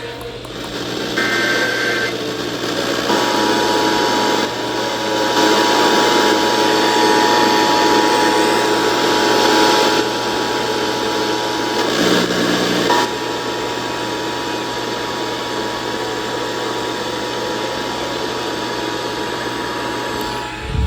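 Emergency Alert System attention signal: the steady two-tone alarm of 853 and 960 Hz, heard through the hiss and static of a weak FM signal. It breaks off for about a second near the middle and then resumes. About a second in, there is a short burst of higher digital header tones.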